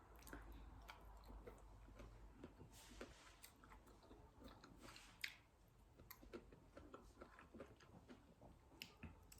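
Faint chewing and mouth sounds of someone eating, with scattered small clicks and smacks.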